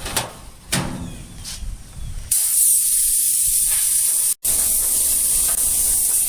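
A few faint knocks of handling, then from about two seconds in a loud, steady spraying hiss, broken once by a brief dropout.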